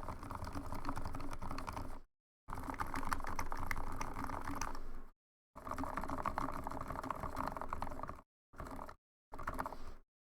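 Typing on a mechanical keyboard with lubed, filmed Gateron linear switches: dense runs of rapid keystrokes, each a few seconds long, that stop abruptly into brief dead-silent gaps, with shorter bursts near the end.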